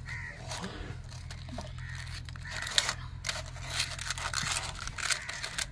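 Aluminium foil crinkling and tearing as a foil parcel of grilled fish is pulled open by hand: irregular crackles and rips, with one sharp crackle about three seconds in.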